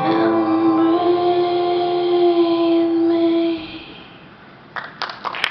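Recorded song ending on a long held note that fades away about three and a half seconds in; audience applause breaks out near the end.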